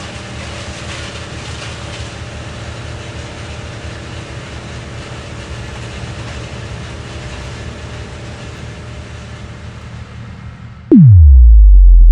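Steady mechanical rumble with a faint low hum in it. About eleven seconds in it gives way abruptly to a much louder electronic tone that glides steeply down in pitch and settles into a deep, steady drone.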